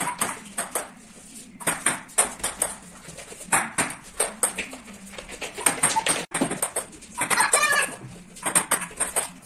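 Table-tennis rally: the celluloid ball clicks sharply off the paddles and the table top in an irregular run of hits. About seven and a half seconds in, a short high-pitched squeal from a child's voice.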